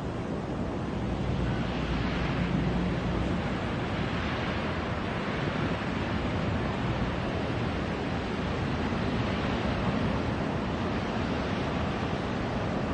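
Steady rushing noise of a large wildfire burning through conifer trees, mixed with wind.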